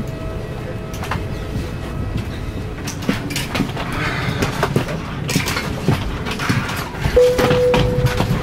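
Low steady rumble inside a parked Airbus A320 cabin, with scattered knocks, clicks and rustling from movement along the aisle. A steady single tone sounds for about a second near the end.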